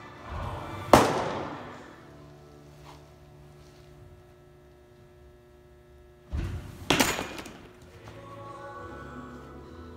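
Two pitched baseballs popping into a catcher's mitt, about a second in and about seven seconds in, each a sharp crack that rings briefly in the room; a low thud comes just before the second. Background music plays throughout.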